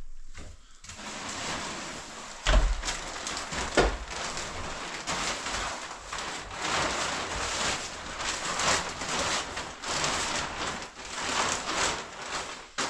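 A large plastic sheet rustling and crackling as it is shaken out and spread over stacked cement bags. Two heavy thumps come a little over a second apart near the start.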